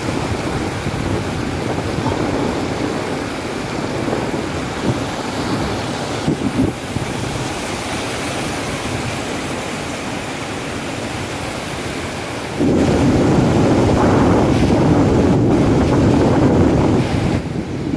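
River water rushing over a low concrete weir and through shallow rapids: a steady rush of noise, with rumbling wind on the phone's microphone. About two-thirds of the way through it suddenly gets louder and stays so.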